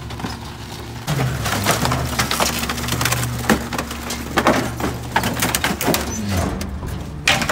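Garbage truck compactor crushing bulky furniture: wood frames cracking and splintering in a rapid series of sharp snaps over the steady hum of the truck's engine and hydraulics. The cracking starts about a second in, with a loud crack near the end.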